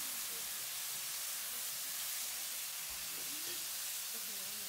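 Meat sizzling steadily in a hot sukiyaki pan as it grills in the first stage of sukiyaki.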